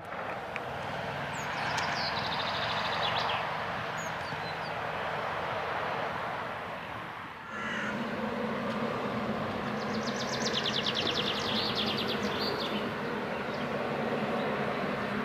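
Birds calling and chirping over a steady rushing background noise, with a rapid rattling call about ten seconds in. The background drops and changes character about seven and a half seconds in.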